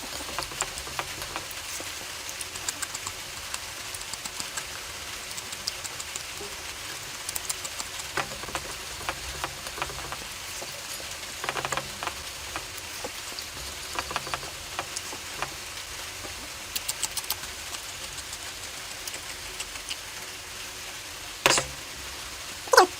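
Close-miked eating of curry: many small wet clicks and smacks of chewing and lips, with two louder wet mouth sounds near the end.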